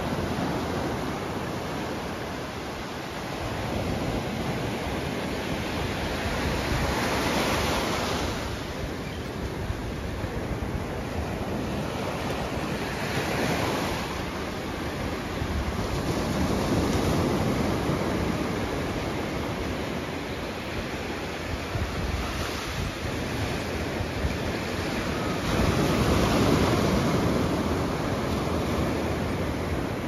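Atlantic surf: small waves breaking and washing up the sand. The sound rises and falls in swells every few seconds, with the loudest swell near the end.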